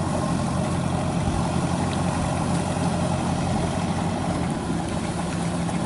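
Kubota 93 rice combine harvester's diesel engine running steadily under load while it harvests rice standing in flood water.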